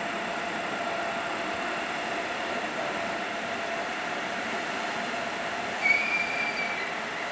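ICE 3 high-speed train standing at a platform, its on-board equipment humming steadily with a few held tones. About six seconds in comes a brief high squeal lasting about a second.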